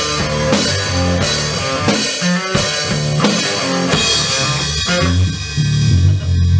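Rock music: a drum kit with bass drum keeping a steady beat, under bass guitar and guitar.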